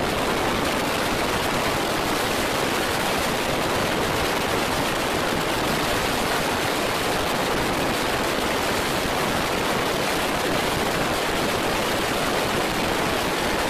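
Steady rush of wind blowing over a microphone held out of a moving car's window, with road noise underneath.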